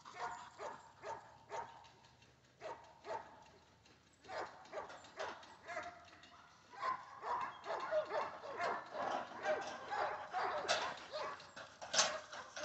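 Cattle dogs barking while working cattle: short, repeated barks, spaced out at first and coming faster and louder from about halfway through.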